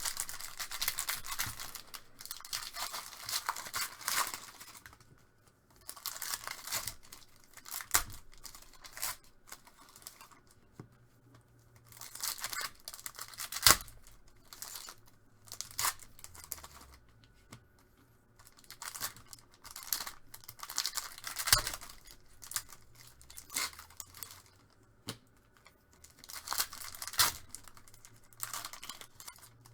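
Trading-card pack wrappers being torn open and crinkled, in repeated bursts of a few seconds with short pauses between, and a few sharp knocks as cards or packs are handled.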